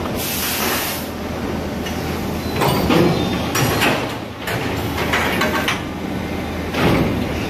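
Die casting machinery running: a steady mechanical din with repeated hissing, clanking surges, the loudest about three seconds in and again near the end.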